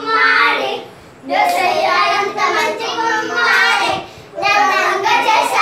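A group of children singing a song together, with hand claps along, breaking briefly between lines twice.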